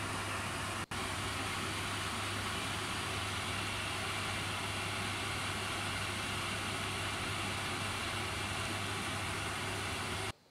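Spinach pakoras deep-frying in hot oil in a kadhai: a steady sizzle of bubbling oil, breaking off briefly about a second in.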